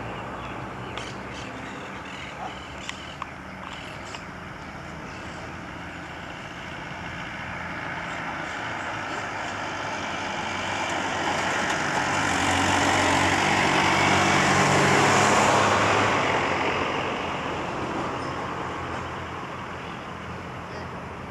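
A diesel railcar running as it approaches on the track. The engine hum and the rumble of the wheels on the rails swell to their loudest about two-thirds of the way through, then ease off.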